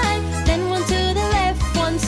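Upbeat children's song with a steady beat and a melody line.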